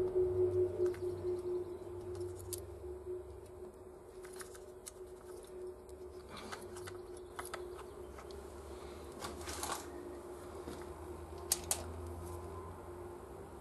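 Light metallic clicks and taps of hand tools on the rocker-arm adjusting screw and locknut of a Honda XL600V Transalp's front cylinder, during a valve-clearance adjustment. A steady hum runs underneath.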